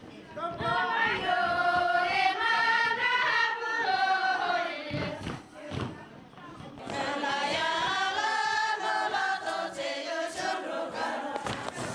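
A group of women singing a song together, in two long phrases with a short break between them about halfway through.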